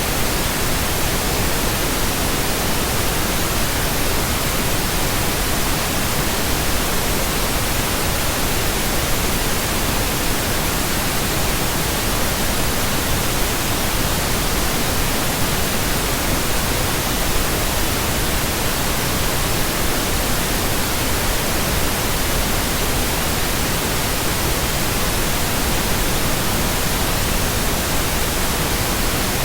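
Synthesized pink noise: a steady, unchanging hiss spread evenly across the whole range, with no tones or breaks.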